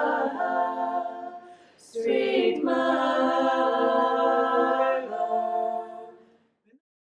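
Four women singing a cappella in close harmony, holding long chords. The singing drops away briefly about two seconds in, comes back, and fades out near the end.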